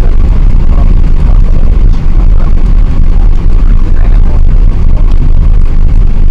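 Loud, steady low rumble inside the passenger cabin of an Airbus A380, from its engines and airframe.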